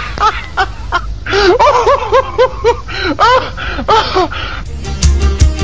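High-pitched laughter made of quick, short notes that rise and fall in pitch. Near the end it gives way to music with a steady beat.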